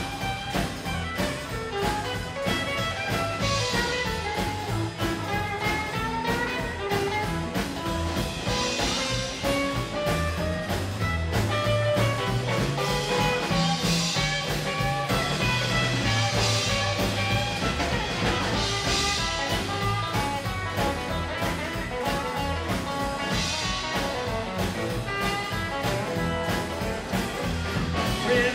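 Rockabilly band playing live in an instrumental break without singing: electric and acoustic guitars over an upright double bass line and a drum kit keeping a steady beat.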